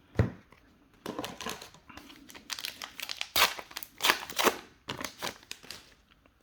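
Foil booster pack wrapper being crinkled and torn open: a short knock, then a run of irregular crackling rustles for several seconds.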